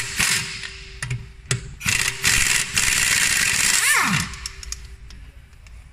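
Mac Tools air impact wrench loosening the factory hub bolts: a few short bursts, then a sustained run of about two seconds that winds down with a falling whine near the end as the trigger is released.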